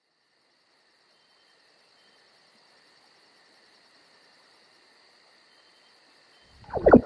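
Night ambience of crickets chirping in an even, rapid rhythm, fading up from silence about two seconds in. Near the end a sudden loud thud cuts in and dies away.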